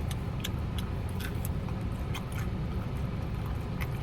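Steady low outdoor city rumble, with scattered short, sharp clicks over it.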